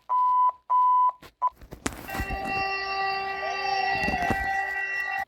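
Synthesized emergency-alert attention tones. First two half-second electronic beeps at one pitch and a shorter third one, then a sudden sweep into a steady alarm chord of several held tones, which cuts off sharply near the end.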